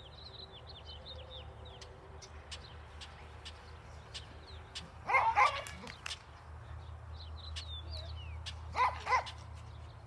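Dog barking: a quick run of several barks about halfway through, then two more barks near the end.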